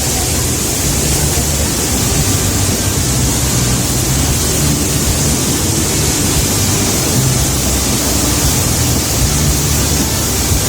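Waterfall's falling water rushing, a loud, steady, even noise with no breaks.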